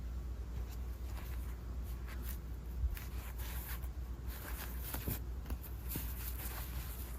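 Packaging being handled during an unboxing: irregular rustling and light scratching and clicking, with a steady low hum underneath.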